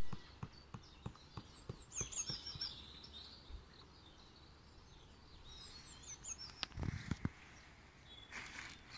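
Small birds chirping and singing in short bursts, about a second and a half in and again around six seconds, over scattered light knocks and taps, with two firmer knocks about seven seconds in, from tent poles and fabric being handled.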